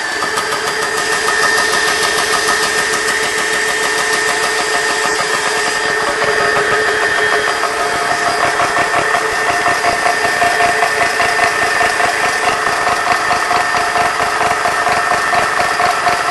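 GX-E-CS2 portable high-pressure air compressor running, its piston pump beating in a rapid, even pulse over the steady whine of its cooling fan. It is filling an empty airgun toward 2,900 PSI.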